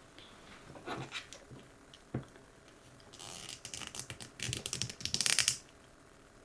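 Small plastic parts clicking and rustling as a flame accessory is handled and fitted onto a small plastic collectible figure. A few light clicks come first, then a sharper click, then a run of rustling and scraping that is loudest near the end.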